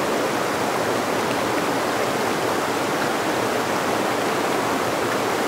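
Mountain stream running over rocks and small cascades: a steady, even rush of water.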